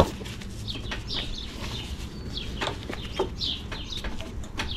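Small metal clicks and creaks as gloved hands twist and bend a copper-and-brass evaporator fitting back and forth in a bench vise to break it off. Short high chirps, like birds calling, come now and then over it.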